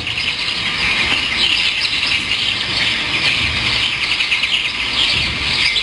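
Recorded birdsong effect: many small birds chirping and twittering together in a dense, steady chorus that starts and cuts off abruptly.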